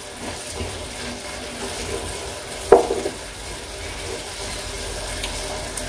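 Aviyal vegetables being stirred in a nonstick kadai, a soft scraping over a steady sizzle as they cook uncovered. One sharp knock of the utensil against the pan about two and a half seconds in.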